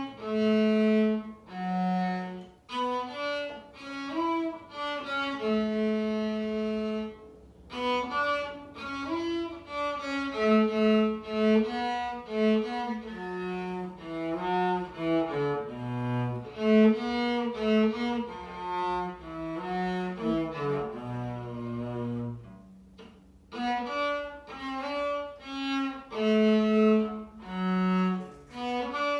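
Solo cello bowed in a simple Argentine folk melody, note by note in short phrases, with a brief pause about three-quarters of the way through.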